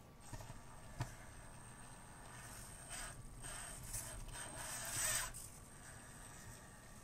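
A 1/24-scale Axial SCX24 Bronco RC crawler's small electric motor and gears whirring in short bursts as it climbs, its tyres scraping on the wooden ramps. There is a sharp click about a second in, and the sound is loudest about five seconds in.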